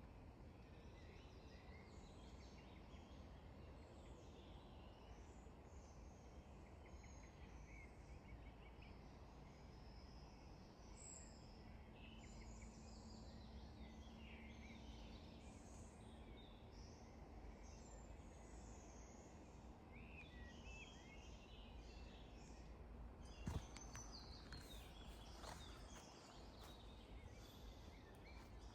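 Faint woodland ambience: many small birds chirping and trilling over a low, steady rumble. A single sharp snap or knock about two-thirds of the way through, followed by a few faint rustles.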